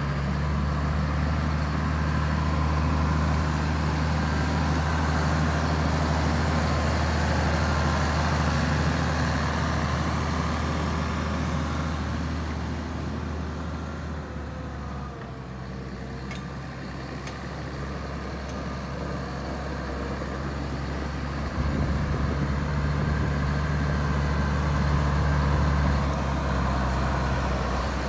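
Case IH 7210 Magnum tractor's six-cylinder diesel engine running steadily. It grows quieter around the middle and louder again about three quarters of the way in.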